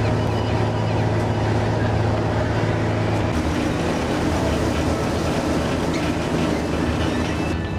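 Steady low drone of a car ferry's engines heard from its open passenger deck, with wind noise; the hum shifts lower about three seconds in.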